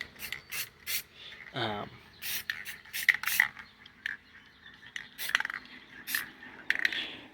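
Scattered handling noises: short scrapes, rubs and light clicks at an uneven pace, with a brief voiced murmur about a second and a half in.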